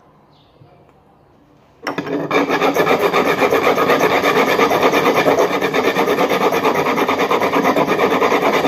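A flat hand file scraping back and forth on the metal top of an old sink faucet's valve in quick, even strokes, filing the metal down. It starts about two seconds in.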